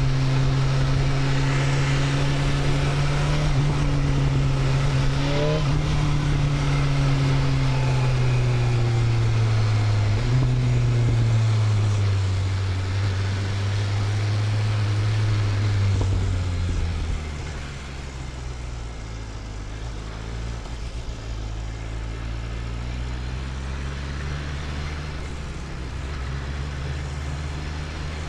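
BMW S1000RR inline-four engine running under way, held at fairly steady revs with the pitch slowly sinking; about 17 seconds in it backs off, drops in level to lower revs, then slowly climbs in pitch again.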